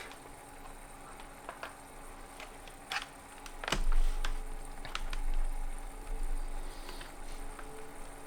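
Steady whir of a PC's 360 mm AIO liquid-cooler pump and fans running under a CPU stress test, the pump set fast enough to be noisy. A few sharp clicks and a knock come about four seconds in, followed by a low rumble.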